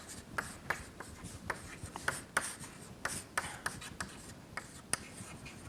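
Pen writing: a run of short, irregular scratching strokes.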